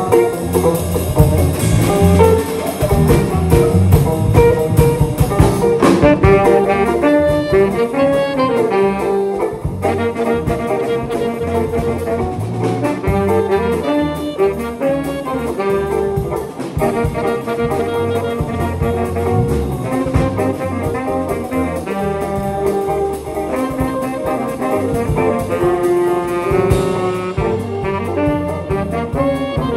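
A small jazz combo playing live, with two saxophones carrying the melody over electric guitars and a rhythm section. The band is busiest and loudest for the first several seconds, then settles into a steadier groove.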